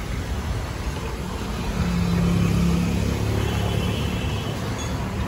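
Roadside traffic: a motor vehicle's engine passing close by, its low hum swelling about two seconds in and easing off after three, over a steady street rumble.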